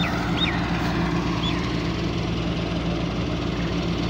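Laverda 3650 combine harvester's diesel engine running at a steady, even speed, with a few short high chirps over it.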